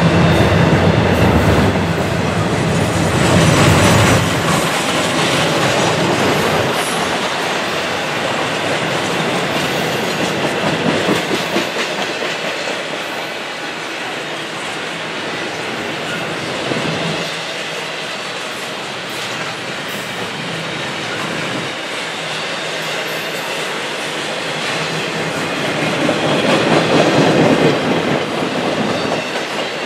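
Double-stack intermodal freight cars rolling past: a steady rush of steel wheels on rail that swells briefly about four seconds in and again near the end.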